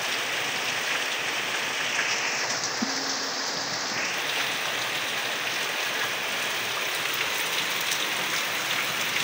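Heavy rain pouring down steadily, an even dense hiss of rain falling on the ground and foliage.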